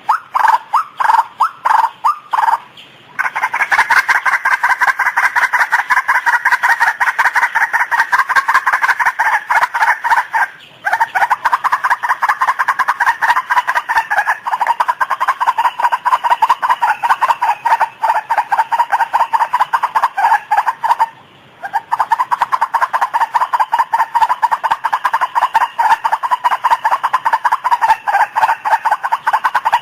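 White-breasted waterhen calling, a lure recording: a loud, rapid run of repeated harsh two-part notes, broken by three brief pauses about three, eleven and twenty-one seconds in.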